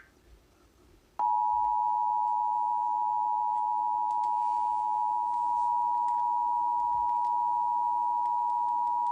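Emergency Alert System attention signal: two steady tones sounding together, starting about a second in, held for about eight seconds, then cutting off suddenly. It marks the start of a broadcast severe-weather warning.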